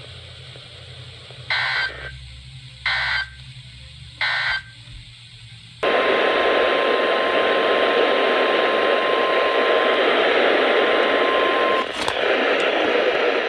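Three short bursts of weather radio data tones, about a second and a half apart: the end-of-message signal that closes a NOAA Weather Radio alert. After a pause, loud radio static starts, carrying the steady NOAA Weather Radio 1050 Hz warning alarm tone for about six seconds. The tone stops with a click and the static runs on.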